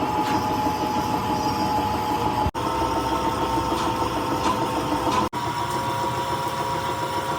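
A workshop machine running steadily with a constant whine over a rattling hum, broken off abruptly twice by edits.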